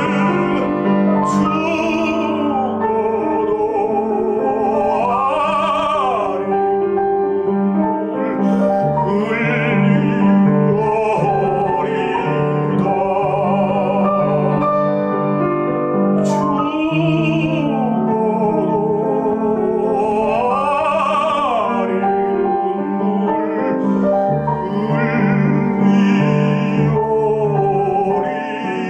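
A tenor singing a Korean art song in operatic style with a wide vibrato, accompanied by piano.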